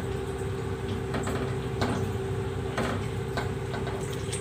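A wooden spoon knocking lightly a few times against a steel pot while stirring sabudana cooking in milk, over a steady low hum.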